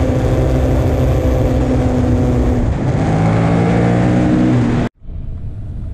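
KTM 1290 Super Duke R V-twin engine running hard on track, heard onboard with wind rush. The revs hold high and steady, break briefly about halfway (a shift or throttle change), then climb slowly again. The sound cuts off suddenly near the end, leaving quieter road noise.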